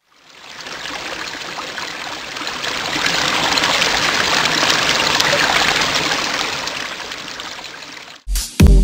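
Sound effect of rushing, trickling water that swells up and then fades away, for an animated logo of liquid letters. About eight seconds in it stops, and loud electronic dance music with a heavy bass beat begins.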